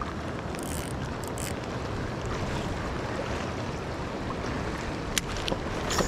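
Steady rush of strong wind and sea surf, with a couple of short clicks about five seconds in.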